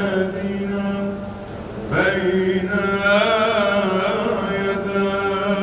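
A male priest's solo voice chanting a Syriac Christian hymn in long drawn-out notes: a held note, a short break about two seconds in, then a wavering, ornamented melismatic line.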